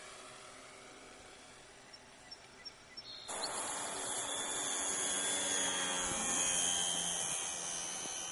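Radio-controlled model airplane's motor whining at high speed as it flies past. Faint at first, then about three seconds in the high-pitched whine comes in suddenly and slowly falls in pitch as the plane passes.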